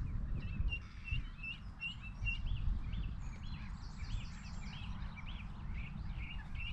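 A small songbird singing, repeating short high chirps about three a second, with a busier run of higher notes in the middle, over a low rumble.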